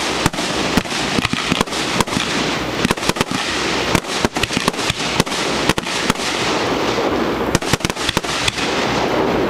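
Aerial fireworks shells bursting at close range: many sharp bangs and pops in quick succession, several a second, over a continuous noisy rush between them.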